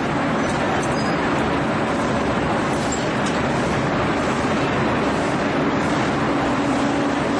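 Glass tempering furnace line running: a steady, loud rushing noise with a faint low hum and no distinct events.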